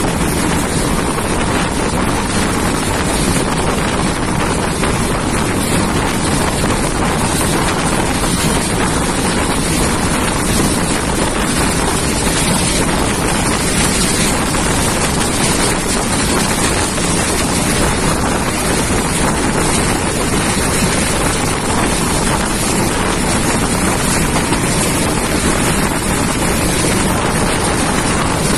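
Steady rush of wind on the microphone over the running noise of a passenger train moving at speed, heard from an open coach door or window.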